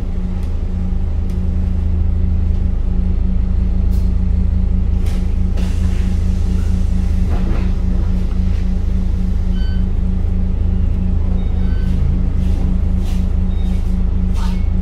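Scania K310UD double-decker bus running, a steady low engine drone with a constant hum, and a few brief rattles and knocks.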